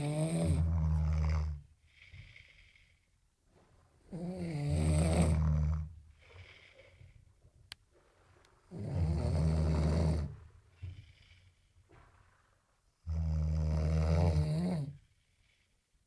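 A person snoring: four snores, each lasting a second or two, about four seconds apart, with quiet breathing between.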